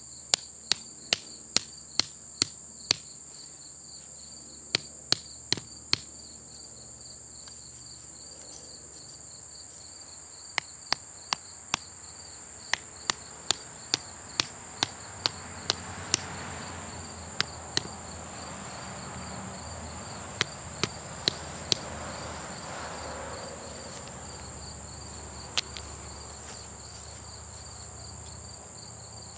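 The back of a hatchet knocking stakes into the ground: sharp knocks in runs of several, two to three a second, with pauses between, the last a single knock near the end. A steady high insect drone runs underneath.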